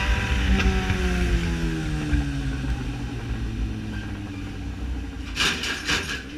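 Yamaha XJ6 Diversion's 600 cc inline-four engine, heard from the bike, with its revs falling steadily as it eases off and the note sinking in pitch. A few short rushes of noise come about five and a half seconds in.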